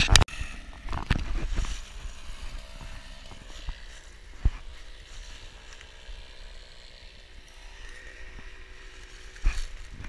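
Wooden knocks of split firewood logs being set onto a stacked pile, a few in the first second, then the rustle of dry fallen leaves underfoot as a person walks, with a single knock near the end.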